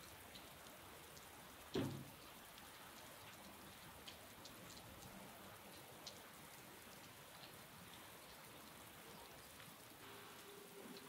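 Faint steady rain falling on wet ground, with one heavy thud about two seconds in as a log of firewood drops into a metal wheelbarrow. A faint steady hum starts near the end.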